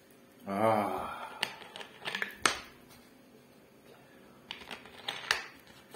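A brief hum of the voice about half a second in, then scattered clicks and smacks of eating and chewing, with a second cluster of clicks near the end.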